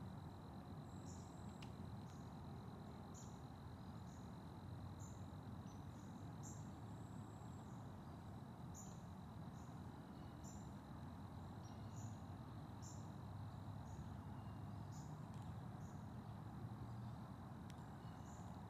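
Faint outdoor field ambience: a steady high insect trill, with short high chirps repeating roughly once a second over a low rumbling hiss.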